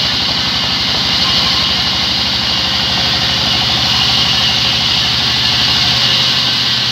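Large band sawmill running steadily: an even mechanical drone with a fast, regular low throb and a constant hiss above it.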